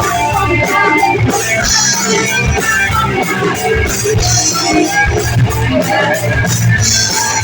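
Live band playing a song: guitar to the fore over bass and drums, with a steady beat from the cymbals.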